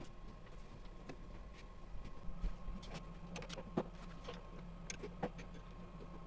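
Scattered light clicks and knocks of a wooden shipping crate being handled and worked on with a hand tool, over a steady faint hum.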